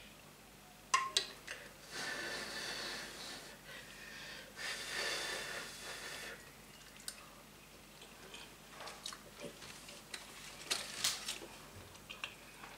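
A person blowing twice on a spoonful of hot baked dessert, each breath about a second and a half long, then quiet chewing and a few light clicks of a metal spoon.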